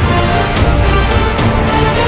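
Soundtrack music with strong bass and drum hits.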